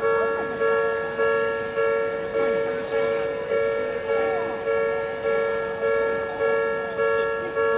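Japanese railway level-crossing warning bell ringing steadily, a clanging 'kan-kan' at just under two strikes a second, each strike decaying before the next: the crossing signalling an approaching train.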